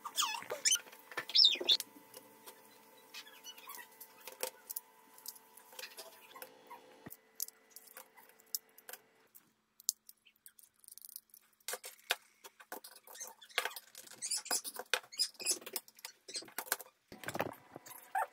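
Scattered light plastic clicks and rattles from modular circuit breakers and RCDs being handled. A small child's high squeals sound near the start and again later. A faint steady hum runs through the first several seconds and then stops.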